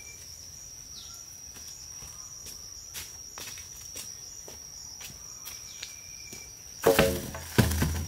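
A steady high-pitched insect drone with faint footsteps on soil. Near the end come two heavy knocks as a wooden pole carried on the shoulder is dropped onto the ground beside the pit.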